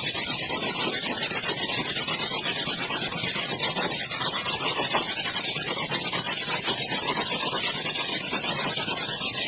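Small diesel engine of a restored water pump set running steadily at idle, with a rapid, even beat.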